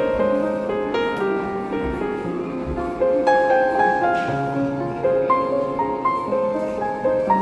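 Soft background piano music, a slow melody of sustained notes.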